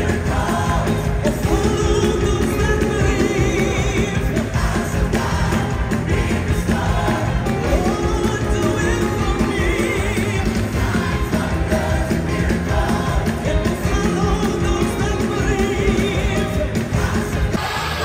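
A large church choir singing with band accompaniment, with a strong steady beat.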